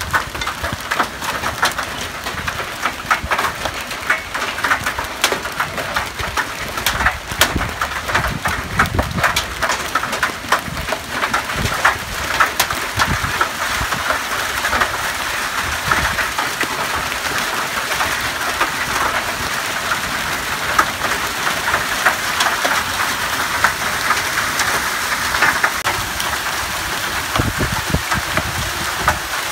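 Hailstones and rain pelting the ground in a heavy hailstorm: a dense steady hiss dotted with sharp ticks of hail striking. The ticks are most frequent in the first half, after which the downpour settles into a more even hiss.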